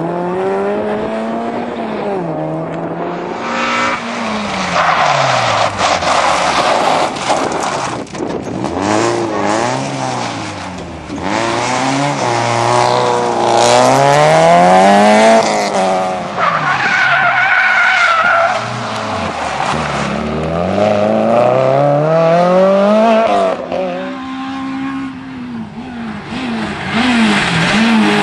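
Rally car engines at full throttle, one car after another, revving up through the gears with repeated rises and sudden drops in pitch as the drivers shift and lift for corners.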